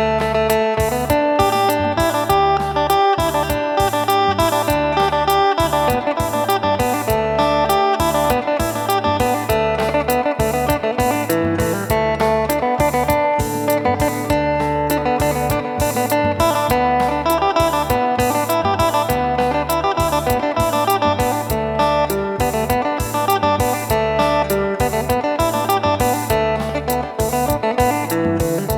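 Phin, the Isan Thai lute, played in a quick plucked melody over a steady bass line and a regular drum beat.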